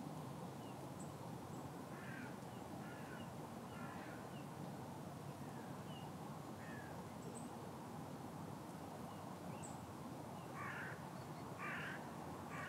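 Crows cawing: a few harsh calls a few seconds in, then three louder caws near the end, over a steady outdoor background hiss. There are a few faint, short, high chirps of small birds as well.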